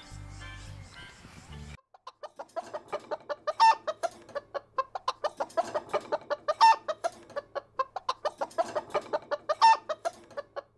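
Background music for the first couple of seconds, cut off abruptly; then chickens clucking in quick runs, with a louder call about every three seconds.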